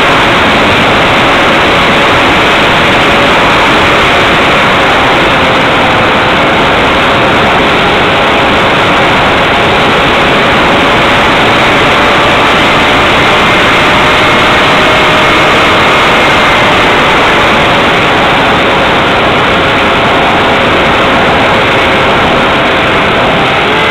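Steady, loud rushing hiss of airflow and motor noise from the onboard camera microphone of a Multiplex Xeno flying wing in flight. A faint whine from the motor and propeller drifts slightly in pitch beneath the hiss.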